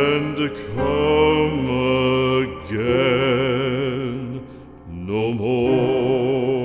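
Slow background music: a melody of long held notes with a wavering vibrato over a low sustained accompaniment, the notes breaking off and starting again three times.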